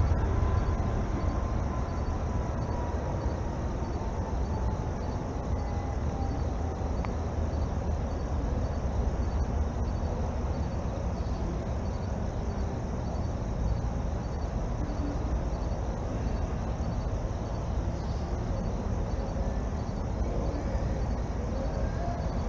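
A steady low rumble. Over the first several seconds a faint tone slowly falls in pitch, and a faint, evenly repeating high chirp runs along above it.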